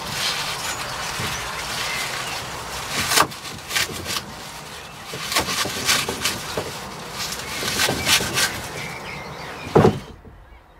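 Knife chopping a bunch of wild garlic leaves on a wooden chopping board: irregular sharp strikes on the board over the rustle of the leaves being handled.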